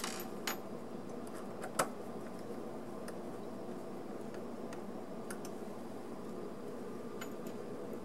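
A few faint, scattered clicks and taps of small metal parts being handled: wheelsets being fitted into a model locomotive's die-cast frame. The sharpest click comes about two seconds in, over a steady background hum.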